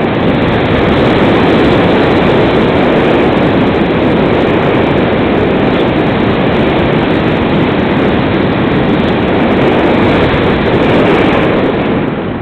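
Loud, steady rushing of airflow over the onboard camera's microphone on a Multiplex Cularis RC glider in flight, easing off near the end.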